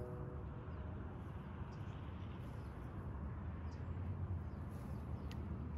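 Quiet outdoor background: a steady low rumble with a few faint, light ticks scattered through it.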